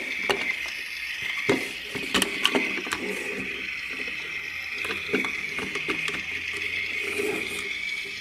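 Plastic toy road roller being handled: scattered light clicks and knocks of hard plastic over a steady high hiss.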